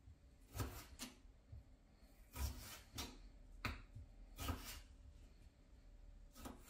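A knife cutting a raw potato into fry strips, each stroke ending in a knock on the cutting board; about seven cuts at uneven intervals.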